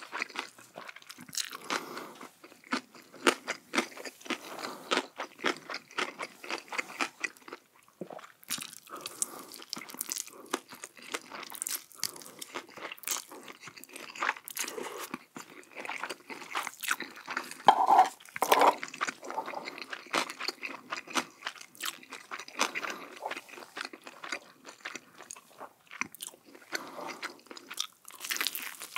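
Close-miked eating: a person biting into and chewing crunchy food, in a dense, irregular run of crisp crunches. The loudest bites come about two-thirds of the way through.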